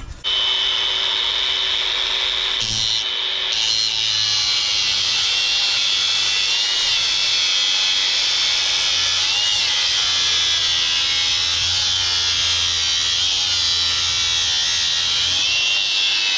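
Angle grinder cutting off the excess rebar from a forged knife blank: a steady high whine over grinding noise that wavers slightly as the disc bites, starting abruptly at the very beginning.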